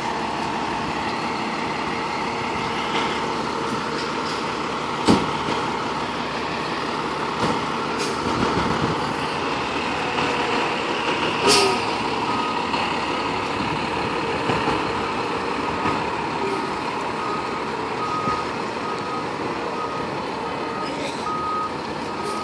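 Seagrave fire engine pumper's diesel engine running steadily as it pulls up, with a sharp click about five seconds in and a short air-brake hiss about halfway. From then on its backup alarm beeps evenly, a little more than once a second, as the truck reverses into the firehouse.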